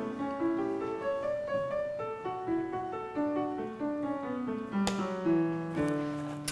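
Background piano music: a gentle melody of single notes stepping up and down.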